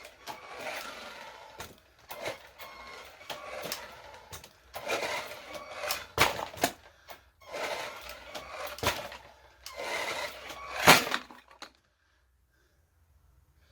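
Irregular clicks, knocks and rustling, as of things being handled, with the sharpest knock about 11 seconds in; it stops abruptly about a second later.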